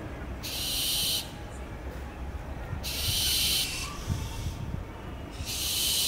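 Barn owl giving three harsh, hissing screeches, each under a second long and about two and a half seconds apart.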